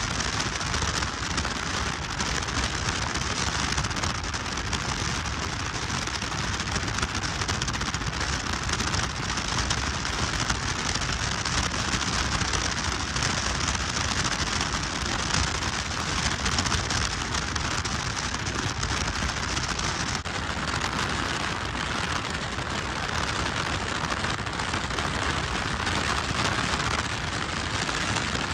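Steady rush of wind and road noise from a moving car, heard from inside at the side window.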